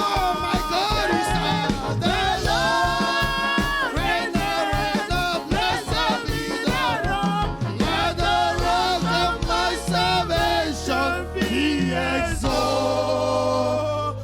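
Gospel praise music: singing voices over a band with a steady drumbeat. The drums drop out about eight seconds in, leaving held bass notes under the voices.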